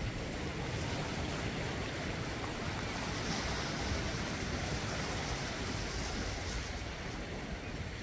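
Small sea waves breaking and washing over black volcanic basalt rocks along the shore: a steady surf rush, with the hiss of a breaking wave swelling a few seconds in. Wind rumbles on the microphone underneath.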